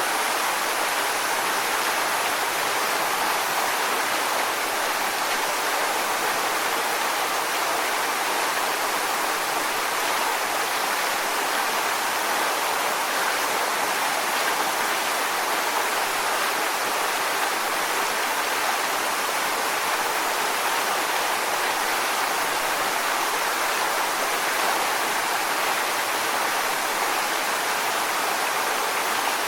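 Waterfall: water falling and rushing over rocks in a steady, even roar with no breaks or distinct splashes.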